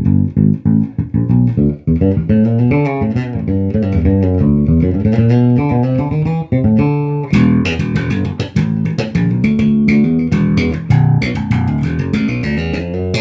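Carvin Icon 5 five-string electric bass played through a bass amp, passive mode with the rear pickup soloed: a continuous run of plucked notes, the line getting busier and more percussive about halfway through.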